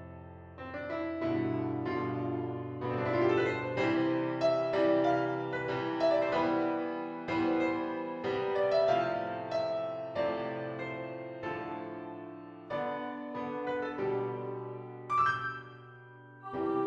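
A piano playing a slow, gentle piece: melody notes and chords struck one after another and left to ring and fade.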